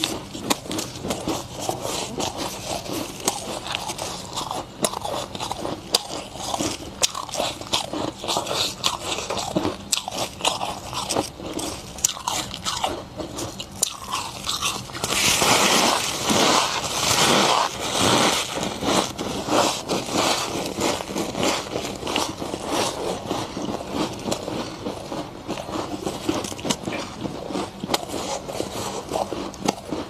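Freezer frost being bitten and chewed close to the microphone: steady crisp crunching, with a louder run of bites about halfway through.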